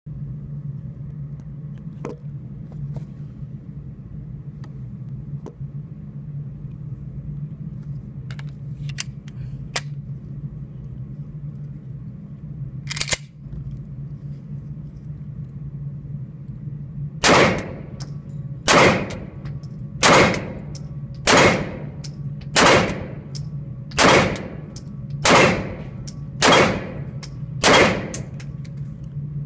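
Gunshots at a shooting range over a steady low hum: a single shot about 13 seconds in, then nine shots fired one after another at an even pace, about a second and a half apart.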